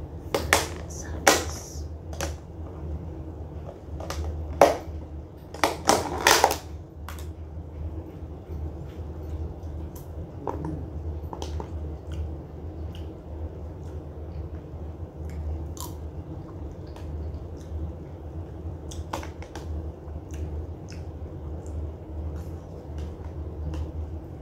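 Clear plastic food container being handled: a cluster of sharp plastic crackles and clicks in the first seven seconds, then scattered faint clicks, over a steady low hum.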